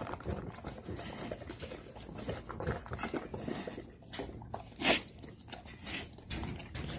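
Bullmastiff eating from a glass bowl: irregular chewing, crunching and mouth smacks, with one louder sharp click about five seconds in.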